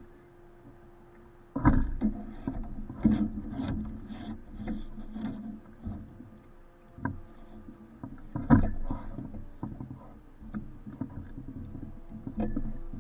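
A series of irregular knocks, thumps and clatters, the loudest about a second and a half in and again past the middle, over a faint steady hum.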